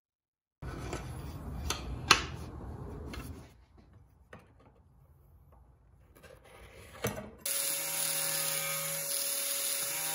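Pieces of wood handled and knocked on the bench, with a few sharp clacks, the loudest about two seconds in. About seven seconds in, an angle grinder starts and runs steadily with a whine.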